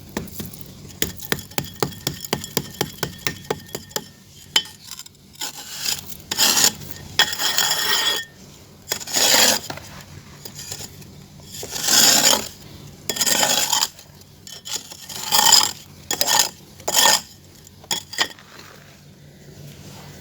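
Hands working clay: a quick run of light taps, about five a second, then a string of short scraping, crumbling rushes.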